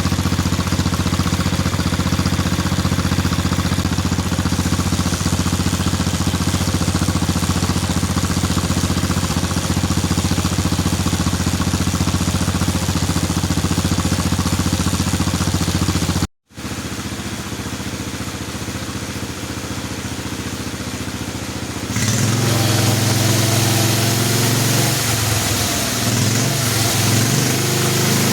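Lawnmower engine on a home-built motorcycle running steadily. It breaks off suddenly about halfway through, then runs quieter, and in the last third it runs louder, its pitch rising and falling as it is revved.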